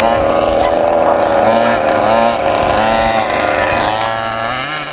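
Radio-controlled car engines buzzing steadily, the pitch wavering up and down as they rev and ease off, with more than one engine heard at once. The sound dips briefly near the end.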